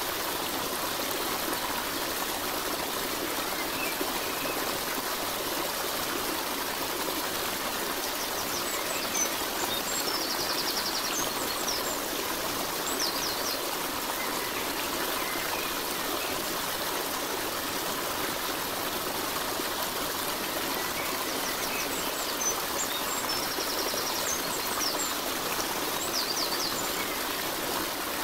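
Steady running water of a trickling stream, with a few brief high trills a few seconds in and again near the end.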